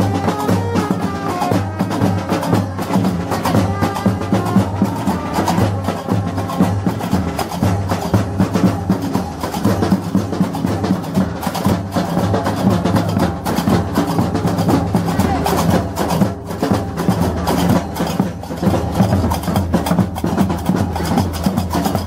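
Moroccan Gnawa street music: iron qraqeb castanets clacking in a rapid, continuous rhythm over a drum.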